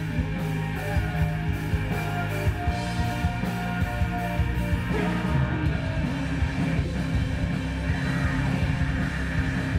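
Rock music playing steadily, with sustained distorted-sounding chords and frequent drum hits.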